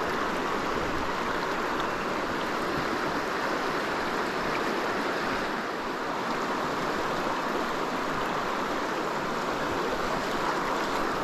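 A shallow, rocky river running fast over a riffle: a steady rush of water.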